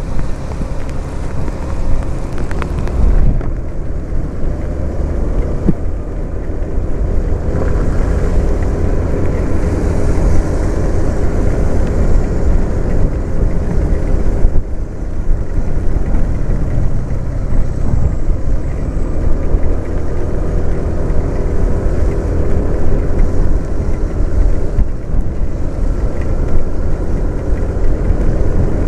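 Motor scooter riding on a wet road: steady wind rumble on the microphone over the scooter's engine running and its tyres on the wet asphalt.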